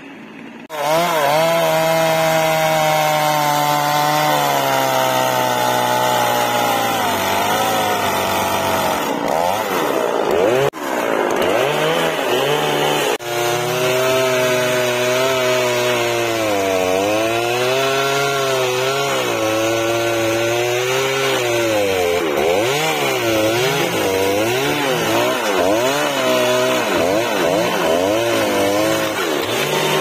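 Petrol chainsaw, a small two-stroke engine, cutting through a tree trunk, its pitch rising and falling as the chain loads up in the wood. It starts suddenly about a second in and dips briefly twice near the middle.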